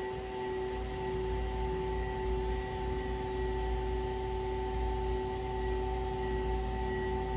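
Steady machine drone: several constant tones that never change pitch, over a low rumble.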